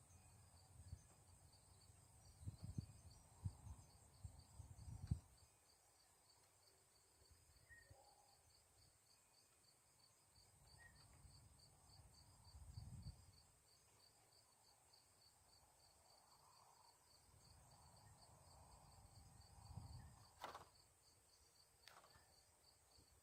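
Near silence: faint, steady rhythmic chirping of crickets, with a few soft low bumps and a single click.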